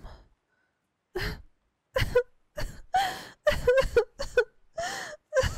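A young woman crying: a quick run of short, shaky sobbing breaths and whimpers, starting about a second in.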